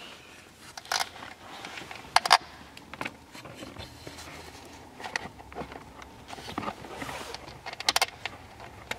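Hands handling a car's wiring harness and cable terminals, with rustling and scattered sharp clicks as a ground cable is fitted onto the ground point.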